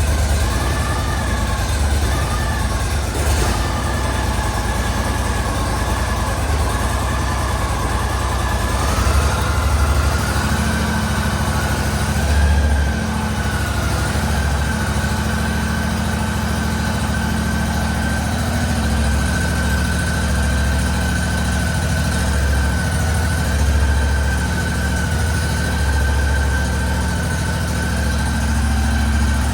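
Cub Cadet 1440 garden tractor engine running steadily on a test run after a transmission install. A high, steady whine sits over the engine; it wavers during roughly the first nine seconds, then holds level.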